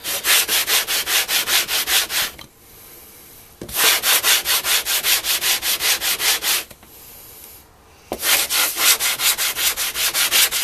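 A 4000-grit Japanese water stone scraped back and forth on coarse wet-or-dry sandpaper to flatten it: rapid, even strokes, about seven a second, in three bursts with short pauses between them.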